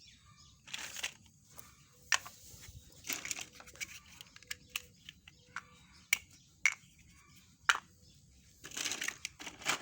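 Plastic toy train track pieces being handled and fitted together: scattered sharp clicks and clacks with rustling, and a denser stretch of rustling near the end.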